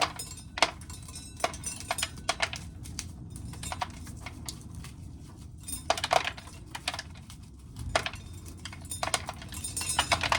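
Dried corn being shelled: kernels clicking and rattling as they break off the cob and drop, in irregular bursts of sharp clicks with a few louder knocks.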